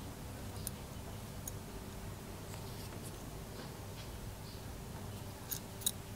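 Thin brass spoon-lure blanks handled in the fingers, giving a few small, sharp clicks, two close together near the end, over a faint steady low hum.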